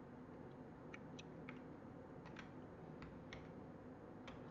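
Near silence: faint room tone with about seven faint, scattered clicks from computer input.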